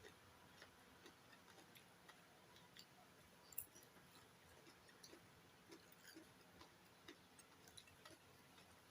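Near silence with faint, irregular small clicks and mouth sounds of someone eating, and one sharper click about three and a half seconds in.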